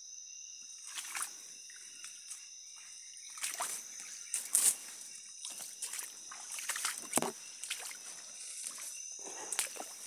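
Footsteps splashing and squelching through a shallow muddy forest stream and brushing through leafy undergrowth, in irregular steps. A steady high-pitched insect drone of the rainforest runs underneath.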